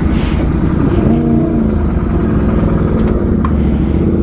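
Motorcycle engine running with a loud, steady low rumble.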